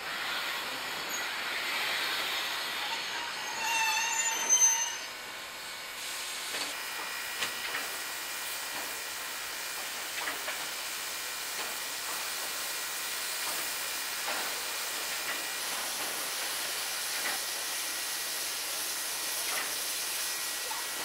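Steam locomotive braking to a stop: a loud brake squeal with several pitches peaks about four seconds in, then the engine stands with a steady hiss of steam and a few faint knocks.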